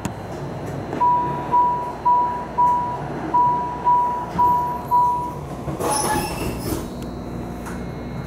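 MARTA rail car door-closing warning: eight evenly spaced high beeps, about two a second, over the steady low hum of the stopped train, followed about six seconds in by a short burst of hiss and clatter.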